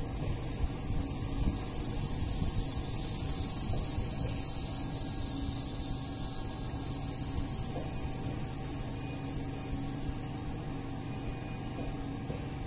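Oxygen facial machine running with a steady low hum, under a high hiss of oxygen flowing through its flowmeter. The hiss fades away about eight to ten seconds in as the flow is turned down.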